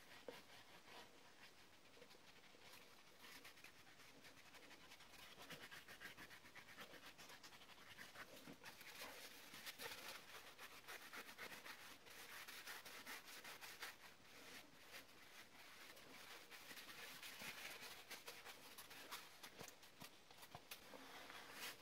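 Very faint rubbing: dry kitchen roll working green chromium oxide paste into the face of a balsa wood strop, in soft, irregular strokes.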